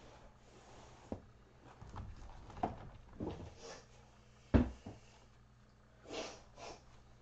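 Knocks and bumps from someone cleaning around a kitten pen, with the loudest thump about four and a half seconds in. Two short hissing sounds come near the end.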